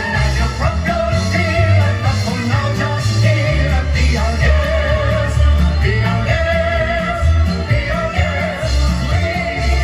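A live band playing loud music with a singer, heavy bass under a wavering sung melody.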